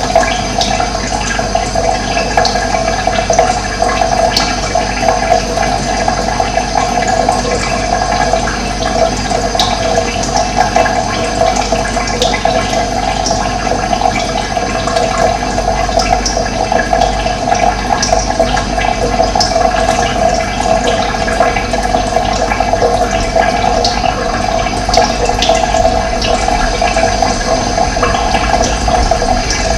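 Running water pouring steadily, with short high bird chirps now and then.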